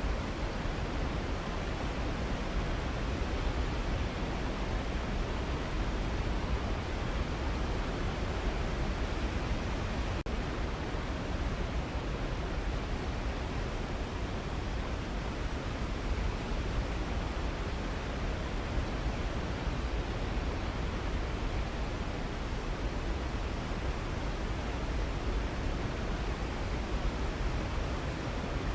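Waterfall: a steady, deep rush of falling water with no change in level, and one brief break about ten seconds in.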